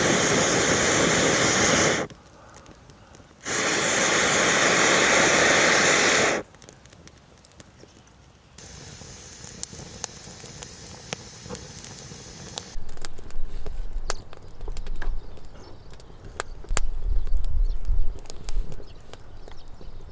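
Two loud bursts of steady hissing, each about three seconds, that start and stop abruptly. Then a quieter stretch of scattered crackles and sharp ticks, with a low rumbling from about halfway.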